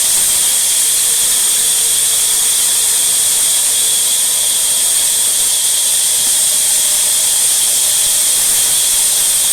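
A loud, unchanging hiss with a steady high whine over it.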